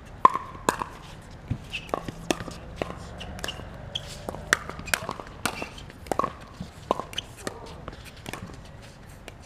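A pickleball rally: paddles pop against the hollow plastic ball and the ball bounces on the hard court. There are more than a dozen sharp, irregularly spaced hits, some with a short hollow ring.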